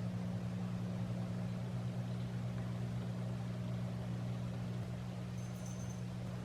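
Steady low drone of a car heard from inside the cabin, an engine and road hum with no change in pitch.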